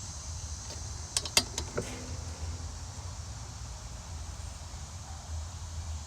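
A few sharp metallic clicks from a wrench and tools on the lawnmower blade bolts being snugged down, over a steady low hum.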